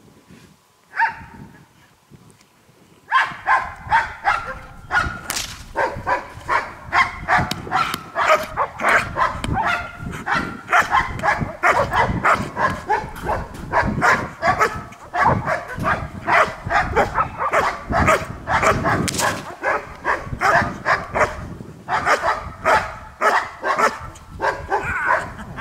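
German shepherd barking at a decoy during protection work: one bark about a second in, then from about three seconds in a steady run of fast, repeated barks, roughly two to three a second.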